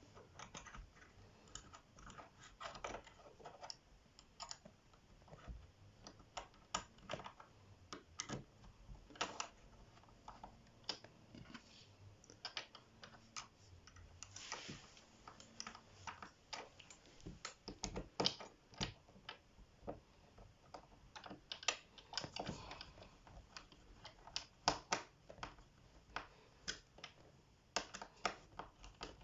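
Irregular light clicks and taps of small screws being fitted by hand to fix assembly clips onto a wardrobe board.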